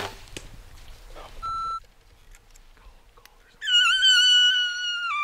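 Elk bugle: a loud, high whistling note held for about a second and a half with a slight waver, then sliding steeply down in pitch near the end. Before it, a sharp click at the start and a short steady high note.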